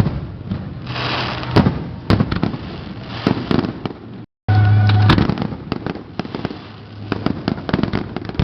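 Aerial fireworks going off in a rapid series of bangs and crackles. The sound cuts out completely for a moment a little past the middle.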